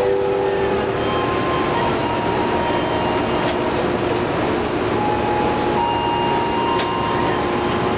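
Passenger train rolling along a station platform, heard from outside a coach's window: a steady rumble of wheels on rail, with scattered clicks from rail joints and thin squealing tones that shift in pitch.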